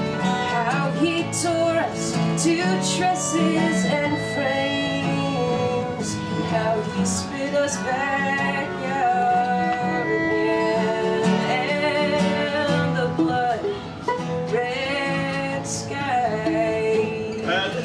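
A woman singing, accompanied by two strummed acoustic guitars and a fiddle.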